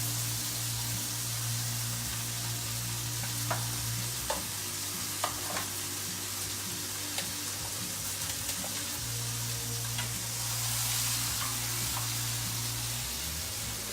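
Marinated chicken halves sizzling steadily in a hot pan, with a few sharp clicks scattered through the middle. A low steady hum drops out for a few seconds partway through and then comes back.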